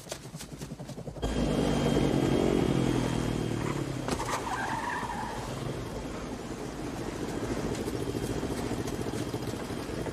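Several vehicles arriving together: motorcycle and SUV engines and a helicopter, coming in suddenly and loud about a second in and then running steadily, with a brief skid around four seconds in.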